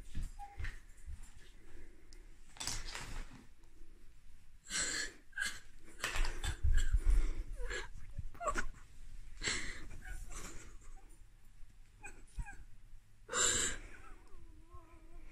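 A boy sobbing hard: loud, gasping, wheezing breaths come in bursts every second or few. Faint wavering whimpers follow near the end, and there are low bumps around the middle.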